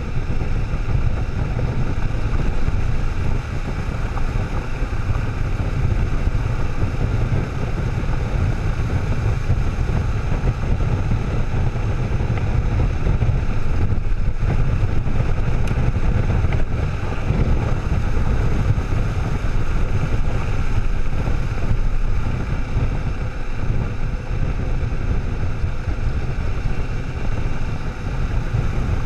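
Kawasaki motorcycle riding on a gravel road: steady wind rush on the microphone over the engine and tyre noise.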